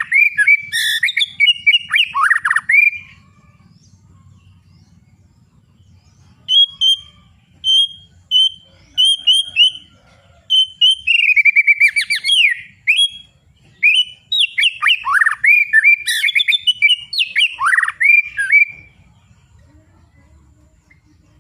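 White-rumped shama (murai batu) singing: loud runs of varied, sweeping whistled phrases. The song breaks off for a few seconds about three seconds in, resumes, and stops near the end.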